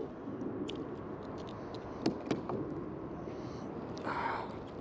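A few light knocks and clicks over a steady background hiss, with two sharper clicks about two seconds in and a brief rush of noise near the end.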